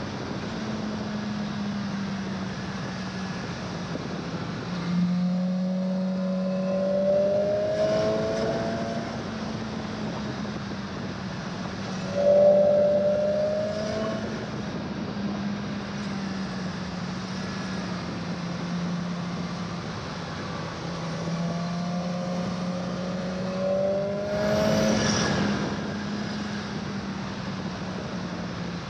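2017 BMW S1000XR inline-four engine heard onboard while riding, with wind noise. The engine pitch rises as the rider accelerates, about five seconds in, again around twelve seconds (the loudest surge) and near the end.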